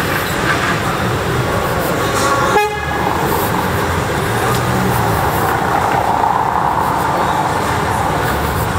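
Steady noise of busy street traffic, with a brief dip about two and a half seconds in.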